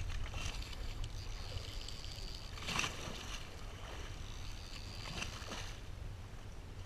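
Open-sea boat ambience: a steady low rumble with a hiss of water around the hull, swelling briefly about three seconds in and again a little after five seconds.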